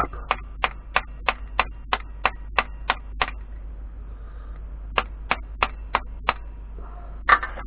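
Small brass hammer tapping a pen-disassembly rod to knock the pen kit's parts out of the blank, about three light taps a second. A run of about ten taps, a short pause, then five more.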